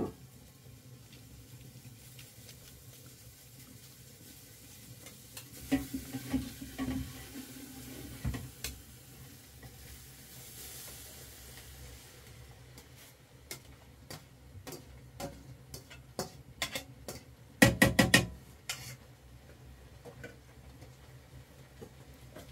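Kitchen work: scattered clicks and knocks of utensils against cookware over a steady faint hiss, with a quick run of loud knocks about eighteen seconds in.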